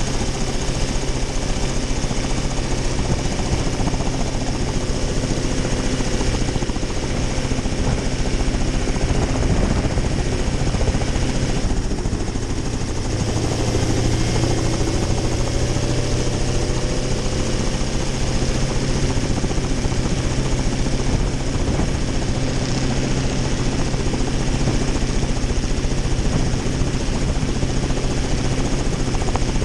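Small single-seat helicopter running on its skids on the ground: the engine runs steadily and the main rotor turns, with a short dip in the sound about twelve seconds in.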